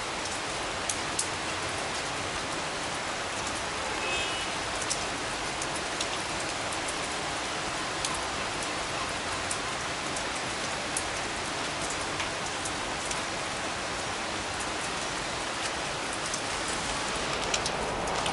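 Steady rain falling on roofs and a flooded street, an even hiss with occasional sharp drop ticks close by.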